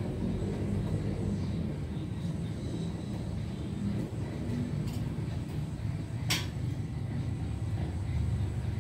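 A steady low rumble, with one sharp click about six seconds in.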